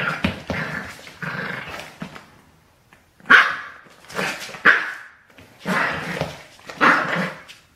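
Seven-week-old Border Terrier puppy giving a string of short, high yaps and growls while play-tugging at a shoelace, with a brief pause about halfway through.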